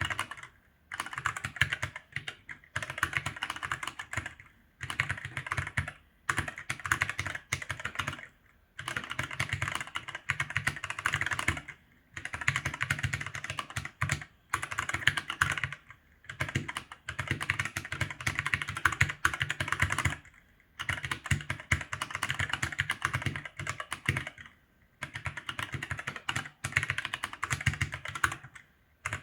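Typing on an ASUS ROG Falchion NX mechanical keyboard with linear red switches: quick runs of keystrokes in bursts of one to three seconds, broken by brief pauses.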